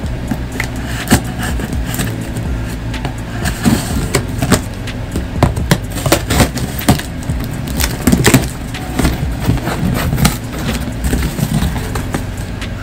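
Knife slicing along the packing tape of a cardboard box and the flaps being worked open: an irregular run of sharp scrapes, rips and cardboard crackles, busiest through the middle, over a steady low hum.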